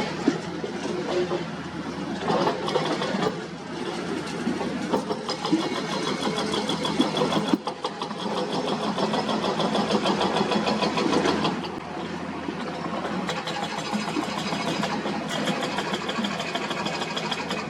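Heavy diesel earthmoving machinery running, with a fast, regular metallic clatter at times.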